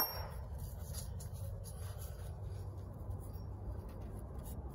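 Faint, steady low hum of room noise. At the very start, a short high metallic ring fades out: the tail of a light clink from the steel camshaft and its compression-release flyweight being handled.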